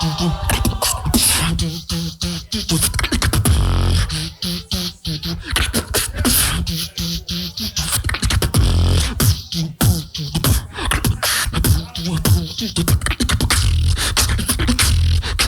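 A beatboxer performing live into a microphone: fast kick, snare and hi-hat sounds over a deep bass line in a repeating groove.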